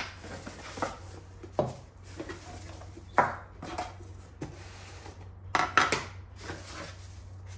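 Unpacking: bubble wrap and a cardboard box rustling, broken by several sharp knocks as small ceramic bottles and a bamboo tray are set down on the table, the loudest at about three seconds and a pair near six seconds.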